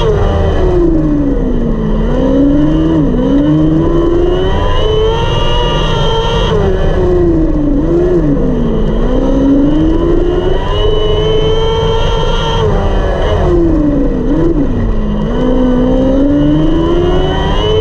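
A 600cc micro sprint's motorcycle-derived engine racing on a dirt oval, heard from on board: the engine note drops sharply each time the throttle is lifted for a turn and climbs back on the straight, three times over, with a brief blip at each low point.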